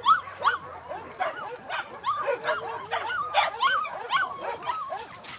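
Puppies whimpering and yipping: many short, high-pitched cries rising and falling, several a second and overlapping, as they cry for attention.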